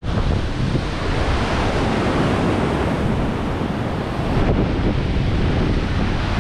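Ocean surf breaking and rushing in a steady wash, with wind buffeting the microphone in a heavy low rumble.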